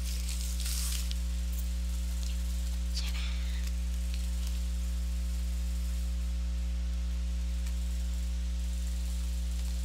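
Steady low electrical mains hum with hiss. A faint rustle about three seconds in, as the cardboard box is handled.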